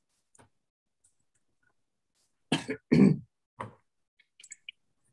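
A person coughing and clearing their throat over a video call, two or three short coughs about two and a half seconds in. A few faint clicks follow near the end.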